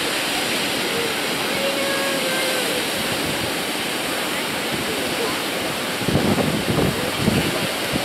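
Surf breaking and washing up on a sandy beach: a steady rush of waves, turning louder and more uneven from about six seconds in.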